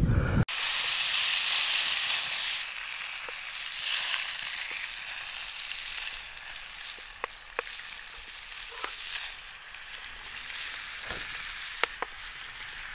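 Bacon sizzling in a frying pan over a wood fire, a steady high hiss with a few sharp clicks scattered through it.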